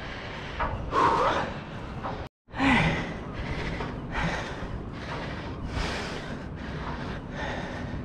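A man breathing hard from exertion right at the microphone, quick puffs about two a second, with a short voiced groan early on.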